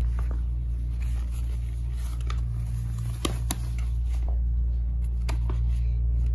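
Plastic packaging bags crinkling in a few short crackles and clicks as they are handled, two sharper pairs about three and five seconds in, over a steady low hum.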